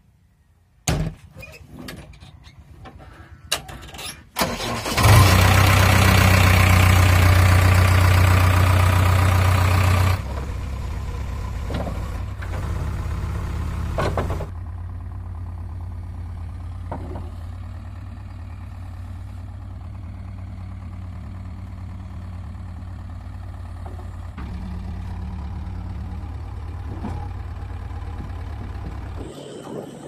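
JCB 3DX backhoe loader: a thump of the cab door shutting about a second in, then the diesel engine starts about five seconds in and runs loud for some five seconds. It then settles to a lower, steady idle.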